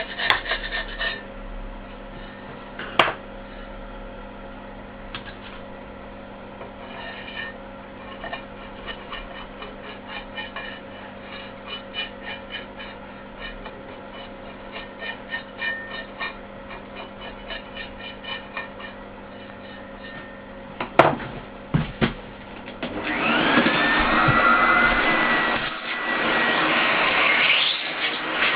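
Workshop work on a loudspeaker: a steady machine hum under quick, repeated scraping strokes, with a sharp knock now and then. About 23 seconds in, a louder rushing machine noise with a wavering whine takes over.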